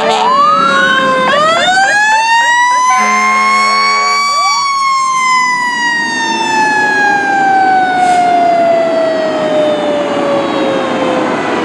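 Fire engine siren winding up to a high pitch over the first second or so. An air horn sounds for about a second and a half, about three seconds in. The siren then slowly winds down, its pitch falling steadily over the last seven seconds.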